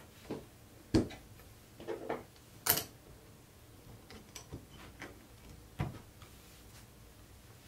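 Chrome-vanadium sockets, extension bars and ratchet being handled in their case: about eight scattered metallic clicks and knocks as the tools are worked in and out of the tight insert, the sharpest about one second and about three seconds in.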